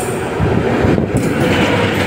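Indian Railways electric locomotive and passenger coaches passing at speed: a continuous rumble of wheels on the rails that grows louder as the locomotive draws level about a second in.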